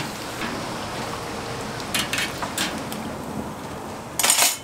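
Hot oil sizzling steadily in a deep fryer as battered strips fry, with a few short clicks of metal tongs against the wire rack and a louder brief clatter near the end.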